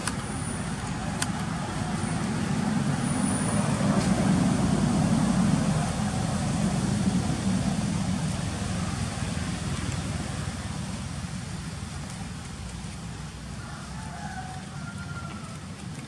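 A motor vehicle passing on a road: a low engine and tyre rumble that swells to its loudest about five seconds in, then slowly fades away.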